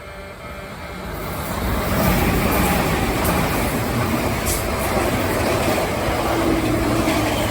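Kintetsu Osaka Line electric train passing through the station at speed. The wheel and rail noise swells over about two seconds and stays loud, with a few sharp clicks as the wheels cross rail joints.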